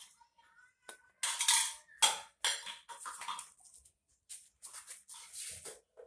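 Hard plastic and metal pipe fittings handled and fitted together on a water tank connector: a string of clicks, scrapes and clatters, loudest about one to two seconds in.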